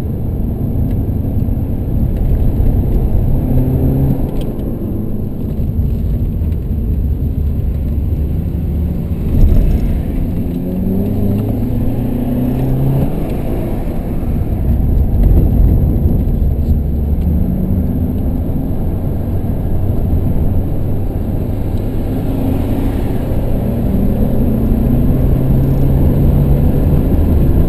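BMW 118d's four-cylinder turbodiesel heard from inside the cabin while driven hard on a track, its engine note climbing in pitch several times and dropping back, over a constant heavy tyre and road rumble.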